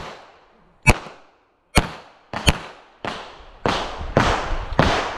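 A string of about nine pistol shots from a Sig Sauer 1911 MAX in .45 ACP. They come roughly a second apart at first and quicken about halfway through, each sharp crack followed by a long echo.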